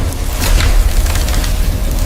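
Loud, deep rumbling with booming hits over it, typical of cartoon battle sound effects.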